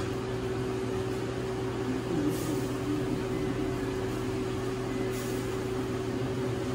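Steady mechanical hum with a constant low drone and an even rushing noise, with faint brief rustles about two and five seconds in.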